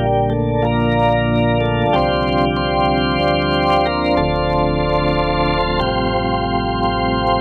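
Roland VR-09 keyboard playing a sustained organ sound: full chords held without decay and changed every second or two, with faint key clicks.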